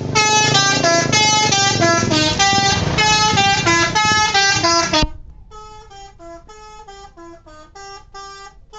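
Telolet bus horn, a multi-tone musical air horn, playing a quick melody of stepped notes over the bus engine's rumble. About five seconds in it cuts off abruptly and a quieter plucked melody, like guitar music, carries on without the engine noise.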